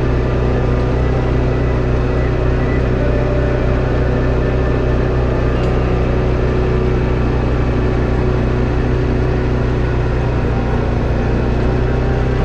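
Tracker Off Road 700 ATV's engine running at a steady speed while riding.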